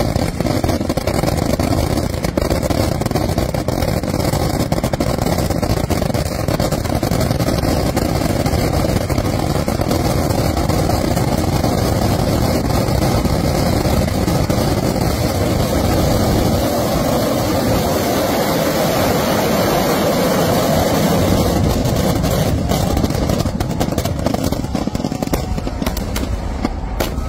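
Massed festival fireworks barrage: firecrackers and shells going off so fast they merge into one unbroken rumble. The blasts thin into separate cracks over the last few seconds.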